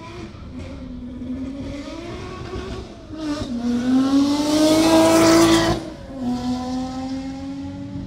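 Ferrari engine running at high revs, its pitch climbing and growing loudest about four to six seconds in, then cutting off sharply; a steadier engine note follows to the end.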